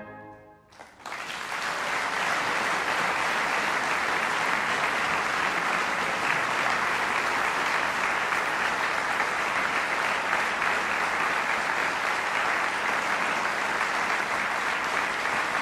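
Audience applause breaking out about a second in, just after the band's closing chord has faded, and going on steadily.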